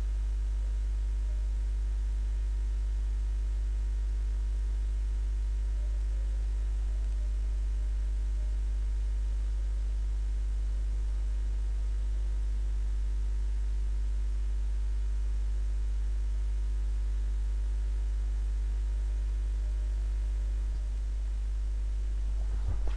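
Steady electrical mains hum in the recording, a low buzz with evenly spaced overtones over a faint hiss.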